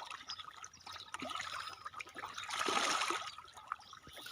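Water trickling and splashing in small irregular spatters, with a louder splash about two and a half seconds in.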